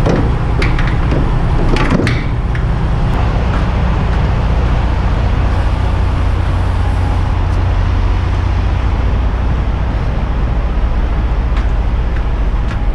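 Semi truck's diesel engine running steadily at low speed, with a few brief clicks in the first two seconds.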